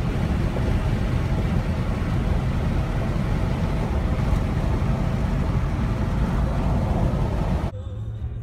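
Steady road and wind noise of a car travelling at highway speed, heard from inside the cabin. It cuts off abruptly near the end, leaving a much quieter cabin.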